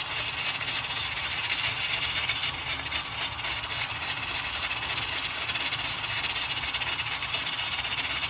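Aluminium pressure cooker venting steam at full pressure: a steady hiss from the weighted vent valve, with a fast, fine rattle of the weight.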